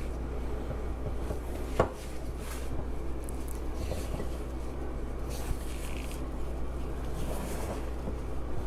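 Cookie dough being stirred and folded by hand in a mixing bowl: the utensil scrapes and knocks against the bowl, with one sharper knock about two seconds in, over a steady low hum.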